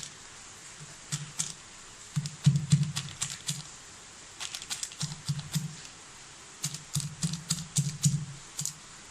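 Camphor tablet being crushed: runs of quick, sharp taps and knocks, several groups with short pauses between.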